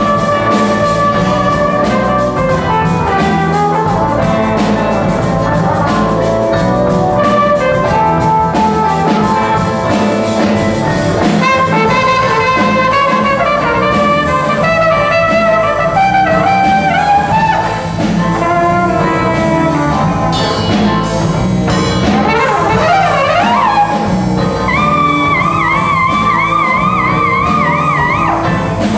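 Small jazz band playing live: horn lines with trumpet and trombone to the fore over guitar, keyboard, bass and drums. Near the end a line swoops up and down, then a high note is held with a wide, wavering shake.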